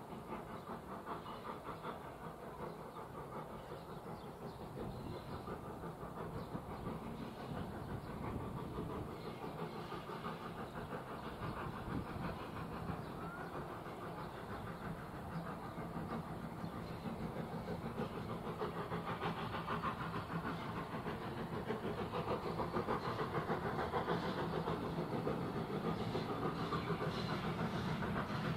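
A steam-hauled train approaching, not yet close: a continuous clattering running sound that grows steadily louder toward the end.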